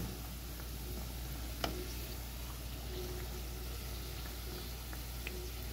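Twisted dough biscuits frying in oil over medium heat: a steady sizzle of bubbling oil, with a couple of faint clicks.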